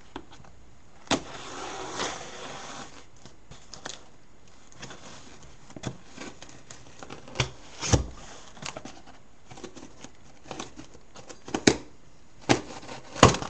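A cardboard shipping box being opened by hand: a scraping, tearing stretch about a second in, then scattered knocks and clicks as the box and its contents are handled, the sharpest ones near the end.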